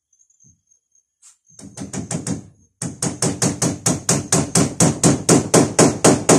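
Hammer driving a nail into a door frame: a few light tapping strikes about a second and a half in, then a quick, even run of blows at about five a second, growing louder, as a corner of a mosquito net is nailed down.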